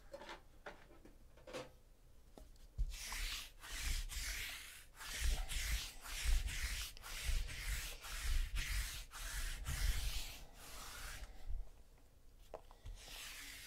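Lint roller rolled back and forth over the tabletop, making quick rubbing strokes about two a second, with a short last pass near the end.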